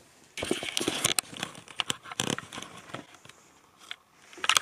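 Fabric rustling close to the microphone: a sleeve and bedding brushing against it as the camera is handled, with scattered small clicks. A second short rustle comes near the end.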